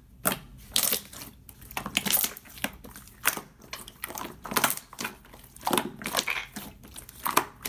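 Clear pale-blue slime full of air bubbles being pressed and squeezed by hand, giving an irregular run of small pops and crackles.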